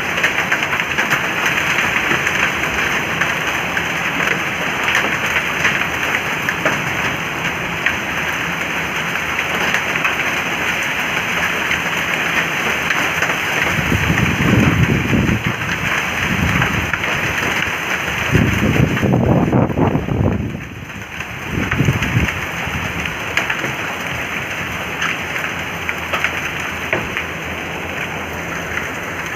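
Heavy rain mixed with hail pelting down on paving, a loud steady hiss dotted with small impact ticks. Two spells of low rumbling come and go in the middle.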